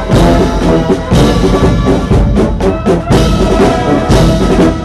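Loud orchestral music led by brass, with drums, playing sustained chords with strong accents about once a second.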